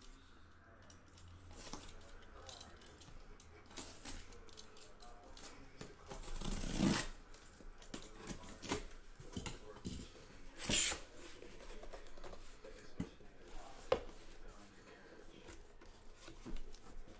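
Sealing tape on a cardboard shipping case being cut and torn open, with scratchy cutting and ripping sounds. Two louder, drawn-out rips come about six and ten seconds in, and the box is knocked and handled near the end.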